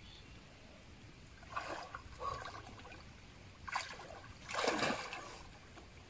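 Water splashing in the river as a person wades and swims through it: a quiet flow with a few splashes, the loudest one about four and a half seconds in.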